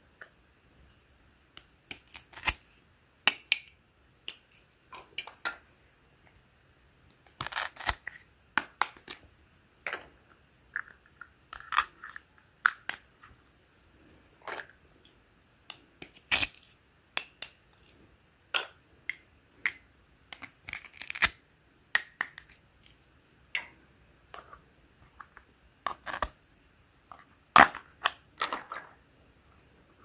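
Plastic toy food and a plastic toy knife being handled and cut: irregular sharp clicks, taps and short scrapes of hard plastic on plastic.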